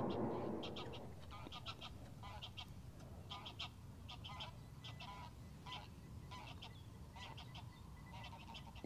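A distant flock of geese honking, with many short calls overlapping throughout. A rushing noise fades out in the first second.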